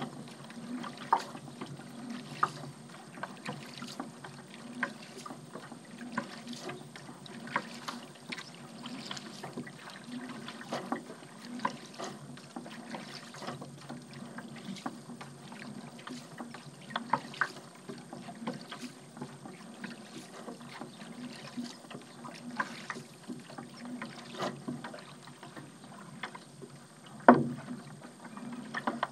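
Paddle strokes dipping into the water with splashes and drips, an irregular stroke every second or two, and one sharper splash or knock near the end.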